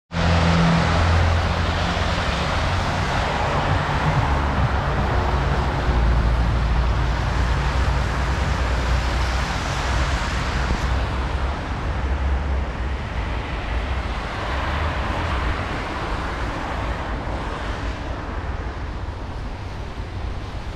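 City traffic on a wet road: car tyres hissing on the wet asphalt, swelling and fading as vehicles pass, over a steady low rumble.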